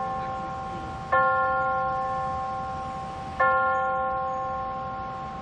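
A large bell tolling the same note, struck about a second in and again about two seconds later, each stroke ringing on and slowly fading, as a tower clock strikes.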